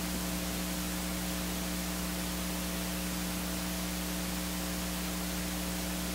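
Steady hiss with a low electrical mains hum made of several fixed tones, unchanging throughout: background noise of the recording chain.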